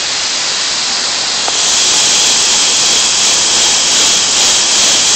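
Dog grooming blow dryer running, a loud steady rush of air that gets louder about a second and a half in.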